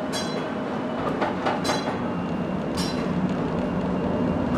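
Restored mid-1900s electric streetcar running, heard from inside the car as a steady rumble that grows a little about a second in. Three brief high-pitched squeaks come near the start, at about 1.7 s and at about 2.8 s.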